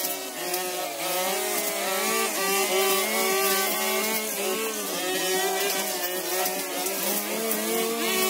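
Two petrol brush cutters running at once, their engine pitch rising and falling as the throttles are worked while cutting overgrown grass and weeds.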